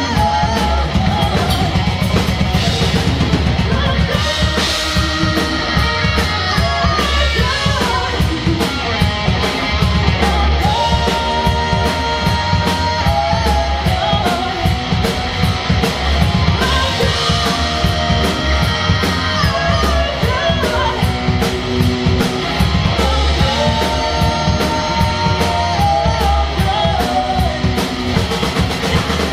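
Live rock band playing: drum kit, electric guitars and bass guitar with a steady beat, and a woman singing lead.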